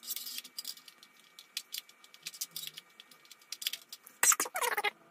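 Light metallic clicks and rattles of a screwdriver working the mounting screws through a CPU tower cooler's heatsink. About four seconds in, a louder shrill sound bends up and down in pitch for under a second.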